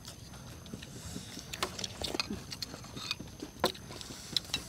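Metal spoons clinking and scraping against plates, a scattering of short, light clicks a few times a second.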